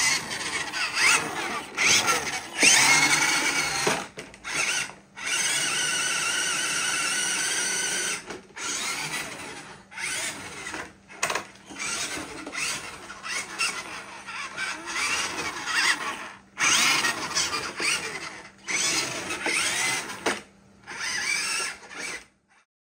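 1/16-scale RC Toyota Land Cruiser 80's small electric motor and gear train whining as it drives, the pitch rising and falling with the throttle and stopping and restarting many times. It runs steadily for about three seconds around the fifth second, and cuts off just before the end.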